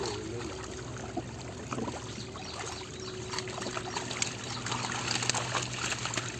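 Densely crowded tilapia thrashing in shallow water inside a seine net, giving a continuous patter of small splashes and trickling water.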